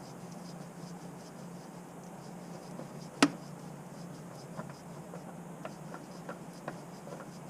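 Hand-removing a spin-on oil filter from underneath a truck: one sharp knock about three seconds in, then a few light taps and clicks as the filter is handled, over a steady low hum.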